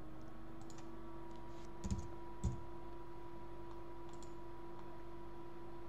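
A few scattered keystrokes and clicks on a computer keyboard and mouse, with two duller knocks about half a second apart near the middle, over a steady hum.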